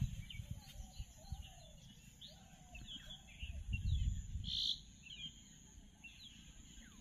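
Small birds chirping repeatedly, over a low rumble on the phone's microphone that swells about four seconds in.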